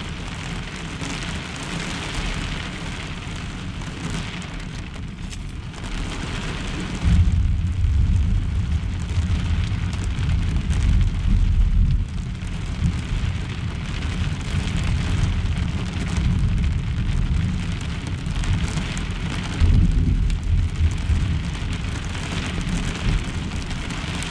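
Rain falling steadily on a pickup truck's camper shell, heard from inside, during a severe thunderstorm. A long roll of thunder starts about seven seconds in and runs for several seconds, and another begins near twenty seconds.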